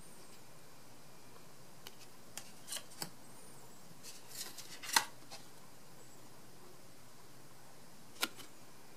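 Light clicks and taps of glossy photocards being handled and set down on a wooden desk, a dozen or so scattered over several seconds. The sharpest click comes about five seconds in, another a little after eight.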